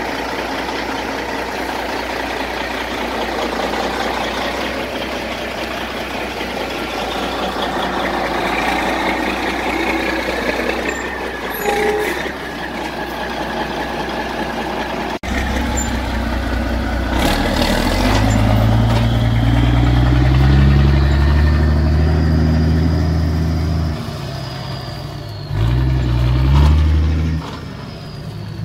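Truck engine running steadily. After a sudden break about halfway through, it comes back louder and deeper, its pitch shifting up and down.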